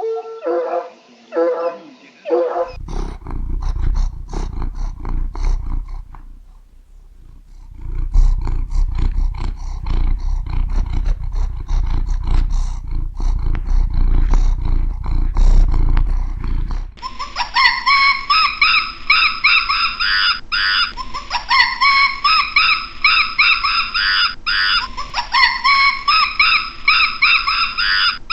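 Recordings of several different animals calling in turn. First, short repeated pitched calls. Then a deep, low rumbling call with crackles that breaks off briefly and resumes. Last, a series of high calls, each opening with a rising sweep, about every four seconds.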